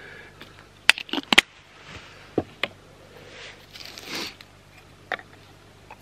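Camp coffee-making gear being handled: sharp clicks and clinks of lids, a metal mug and a spoon, with soft rustling and a hiss of about a second near the middle.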